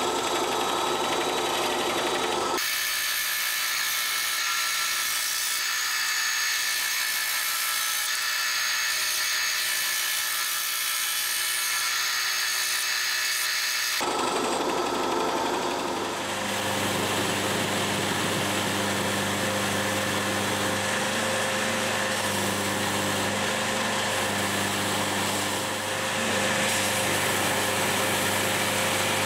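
Power tools running in a woodworking shop, in two edited stretches. For about ten seconds there is a high, hissing abrasive noise, then it changes abruptly to a steadier motor with a low hum under the hiss.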